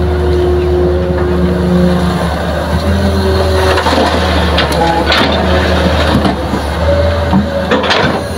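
Hitachi hydraulic excavator working: its diesel engine runs with a steady low drone, and a hydraulic whine shifts pitch as it moves. From about halfway on come irregular knocks and clatters, consistent with soil being dumped into a dump truck's steel bed.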